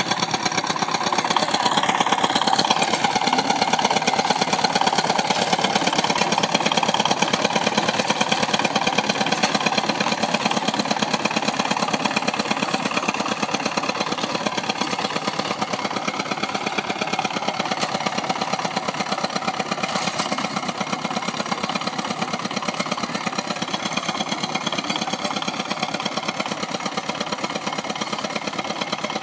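Two-wheel walking tractor's single-cylinder diesel engine running steadily with a rapid, even chug, a little louder in the first third.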